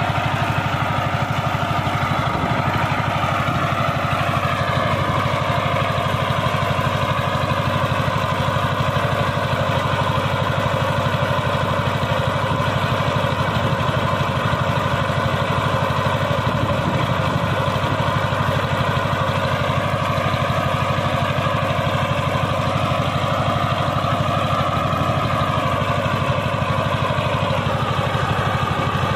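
Two-wheel power tiller's single-cylinder diesel engine running steadily while the machine is bogged in deep mud; its speed drops a few seconds in and picks up again near the end.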